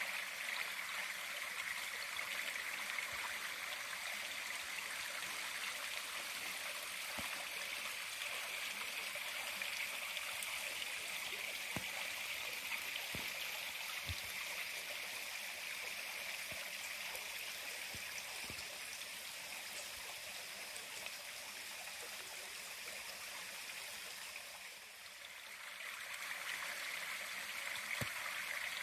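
Small creek running among fallen logs: a steady rush of flowing water, dipping briefly near the end before coming back.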